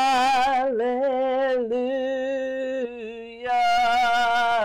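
A woman's voice singing long held notes with no clear words, wavering slightly in pitch. It drops softer a little before three seconds in and swells back up about half a second later.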